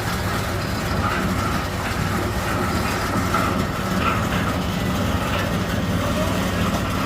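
Portable concrete mixer's small gasoline engine running steadily, with a repeating knock from the turning drum about once a second.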